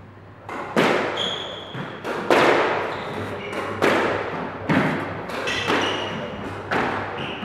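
Squash ball being hit back and forth in a rally: sharp echoing cracks of racket strikes and the ball hitting the walls of the court, every second or so and often in quick pairs. Short squeaks of shoes on the wooden court floor come in between the hits.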